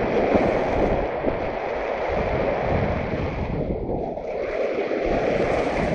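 Strong wind rushing and buffeting over the microphone, a steady rough roar.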